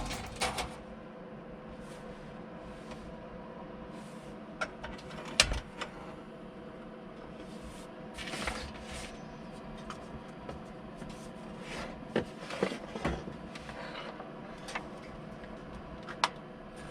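Scattered light clicks, knocks and short rustles of objects being handled, over a faint steady hum.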